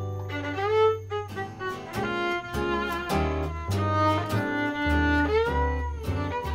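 Instrumental jazz from a violin, acoustic guitar and double bass: the violin plays the melody, sliding up into its notes, over walking double-bass notes and guitar chords strummed about twice a second.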